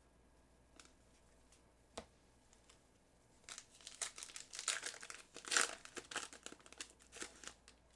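A trading card pack's wrapper being torn open and crinkled, starting about three and a half seconds in, after a single sharp click about two seconds in.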